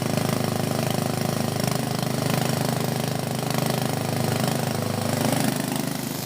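Engine-driven grass chopper and shredder machine running steadily, its small engine droning at a constant speed.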